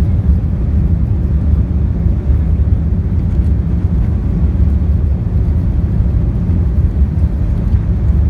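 Steady low rumble of an Airbus A380 heard from inside the passenger cabin during landing: the four jet engines and airflow over the fuselage, with no distinct events.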